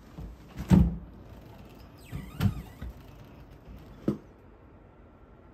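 Doors of a wooden wall cabinet being opened by hand: a loud knock as a door comes open, a clattering knock with a brief creak about a second and a half later, and a sharp click just after four seconds.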